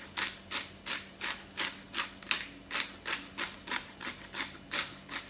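Hand-twisted pepper mill grinding black peppercorns: a steady rhythm of gritty crunches, about three or four a second.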